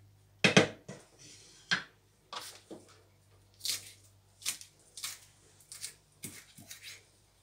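Irregular knocks and light taps of kitchen prep work: a wooden spatula knocking in a frying pan of tomatoes, loudest about half a second in, then scattered light taps and scrapes as chopped herbs are gathered on a plastic cutting board.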